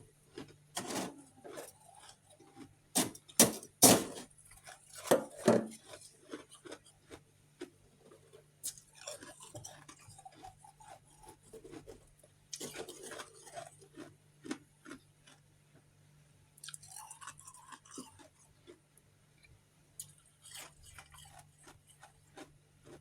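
Refrozen freezer frost chunks being bitten and chewed, close to the mouth. The crunches are loudest and sharpest between about three and six seconds in, and the chewing then goes on more softly and in scattered crunches.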